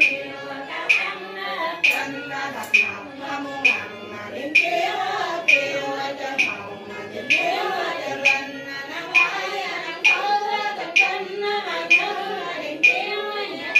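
Cao Dai funeral prayer chanted as a slow sung melody, over a sharp percussion strike about once a second.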